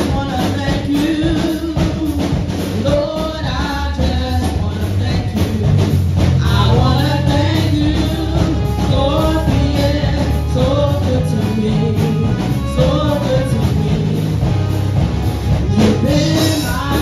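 A church worship band playing an upbeat rock-style praise song, with drums and guitar under voices singing.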